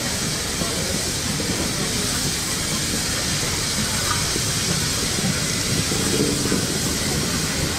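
Steam locomotive hissing steadily, with a low rumble underneath.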